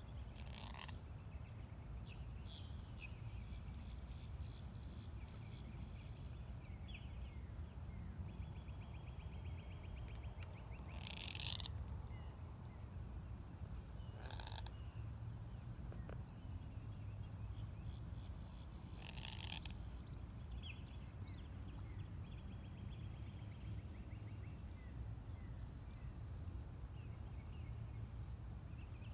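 Frogs calling in a pond, faint: short calls every few seconds, some in rapid pulsed trills, over a low rumble and a steady high whine.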